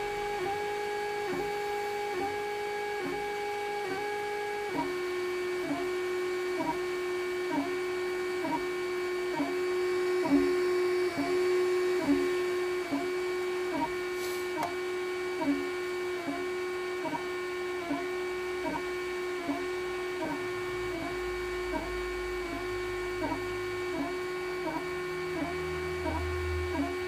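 3D printer's stepper motors whining with steady pitched tones, broken by a regular tick about every two-thirds of a second as the head reverses. The pitch steps down about five seconds in, and deeper motor tones join near the end.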